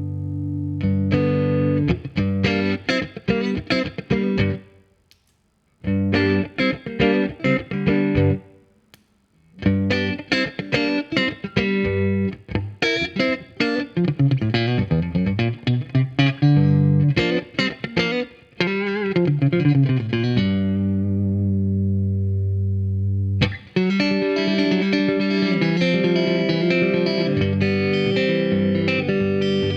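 Electric guitar played through a compressor effect: picked single notes and quick runs broken by two short pauses, with some bent notes, then from about twenty-four seconds in a steady stretch of chords held ringing.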